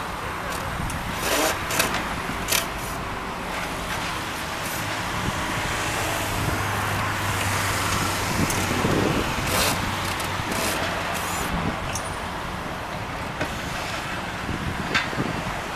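Steady engine drone of road traffic and a demolition excavator at work, with several sharp knocks and cracks scattered through.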